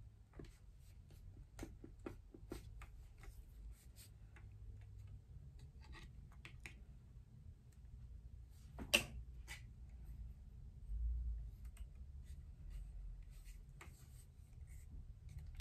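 Quiet handling of a Panasonic Lumix superzoom camera: scattered small clicks and taps, a sharper click about nine seconds in, and a soft low bump a couple of seconds later.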